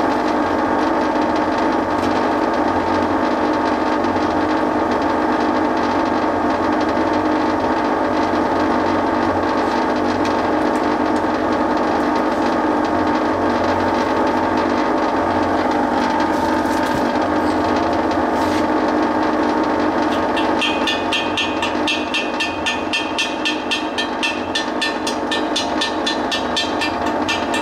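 Stick welder running with its cooling fan making a loud, steady racket; mud dauber nests built onto the fan inside it cause the noise. About two-thirds of the way in, quick, even tapping of a hand tool on the freshly welded cast iron joins it.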